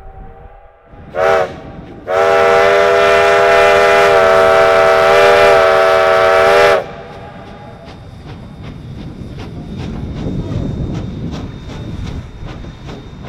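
Steam locomotive whistle on a 2-8-0 Consolidation, several tones together: a faint sounding that dies away in the first second, then a short toot and a long blast of about four and a half seconds. After it, the train rolls on with a rumble and steady rhythmic clicking, about three clicks a second.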